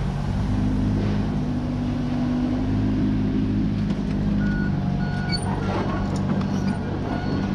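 Komatsu mini excavator's diesel engine running steadily. A series of short, evenly pitched beeps repeats through the second half.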